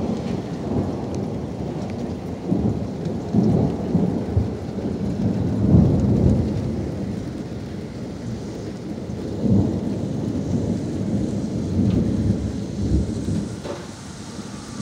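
Thunder rumbling after a lightning strike: a long low roll in several swells, loudest about six seconds in, easing off near the end.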